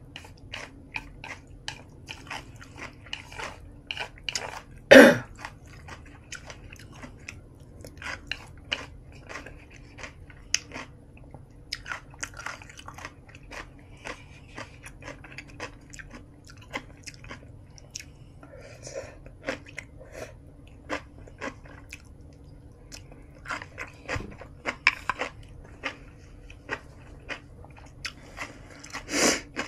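Close-miked chewing and biting of food, with many small wet mouth clicks. One sharp, louder mouth sound stands out about five seconds in, and another comes near the end.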